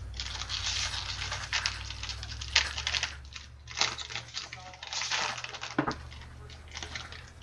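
Foil wrapper of a football trading-card pack being torn open and scrunched in the hands, a dense crinkling and crackling full of quick sharp snaps that dies down after about six seconds.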